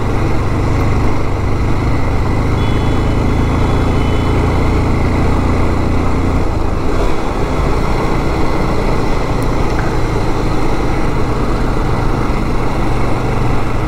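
Bajaj Pulsar 180's single-cylinder engine running while the bike is ridden, over a steady rush of road and wind noise; the engine note drops about six and a half seconds in.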